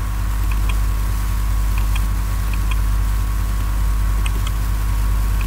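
Steady low electrical hum with a faint steady tone, under faint pairs of computer mouse clicks, a press and release, every second or so.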